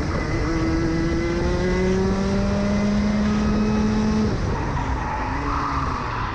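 Rotax Max Evo 125cc two-stroke kart engine heard onboard, its pitch rising steadily as the kart accelerates down a straight. About four seconds in the driver lifts off and the engine note drops sharply as the kart slows for the next corner.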